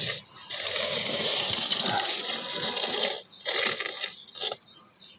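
Handling noise of loose bonsai training wire being gathered up: a couple of seconds of rustling with light metallic clinking, then a few scattered clicks.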